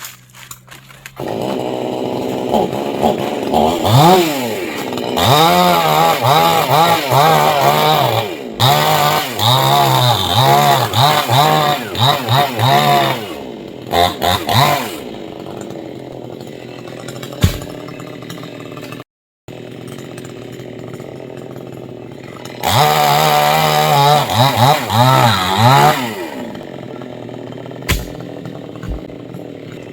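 Two-stroke chainsaw running, revved up and down again and again, then dropping back to a lower idle between two stretches of revving.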